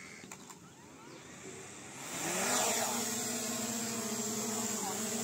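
DJI Mini 3 Pro quadcopter's motors spinning up about two seconds in, the pitch rising quickly as it lifts off, then a steady propeller whine as it hovers.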